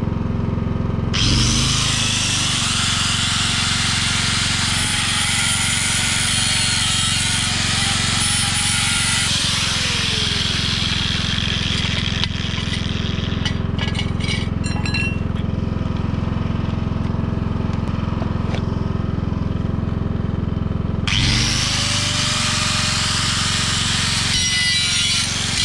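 Handheld angle grinder grinding old weld bead off a rusty steel square-tube part, a loud hissing grind of disc on metal. It stops about twelve seconds in and starts again about twenty-one seconds in, with the motor spinning back up. A steady low hum runs underneath throughout.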